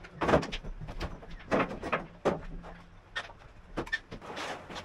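Knocks and clatter of parts being handled, then a rusty tray being lifted out of the engine bed. About six sharp knocks come at irregular intervals.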